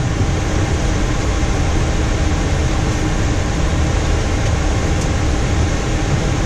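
Steady air-conditioning and ventilation noise with a low rumble inside a Boeing 737-800 cockpit, engines not yet started.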